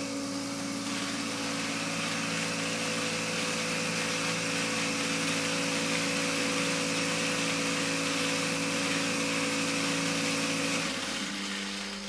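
Contador 2 seed counter running as it counts seeds into a bag: a steady mechanical hum with a faint hiss above it, cutting off about eleven seconds in.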